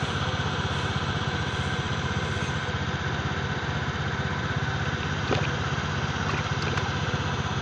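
A small engine idling steadily, with a short knock about five seconds in.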